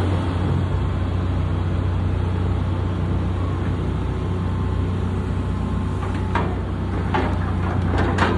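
Excavator's diesel engine running steadily, with several sharp knocks and clatters from about six seconds in.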